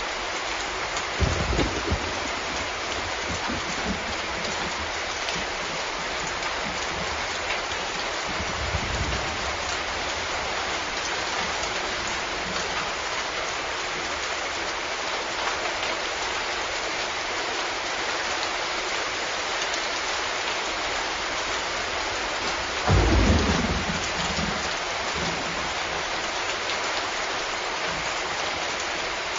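Steady rain falling, with low rumbles of thunder: a short one about a second in, a fainter one around nine seconds, and the loudest, longest roll about three quarters of the way through.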